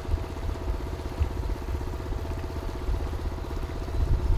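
Small engine of a jet-powered kayak running steadily, a low, even, fast-pulsing drone.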